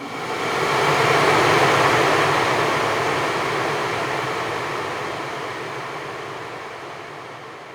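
A cinematic transition whoosh: a dense rushing noise that swells over the first second and a half, then slowly fades away.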